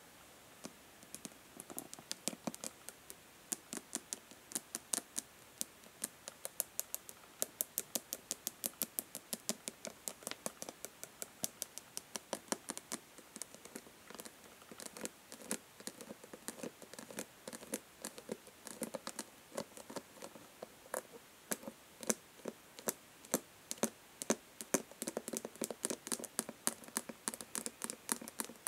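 Natural fingernails tapping fast on a plastic body lotion bottle: a quick, uneven run of sharp clicks, several a second.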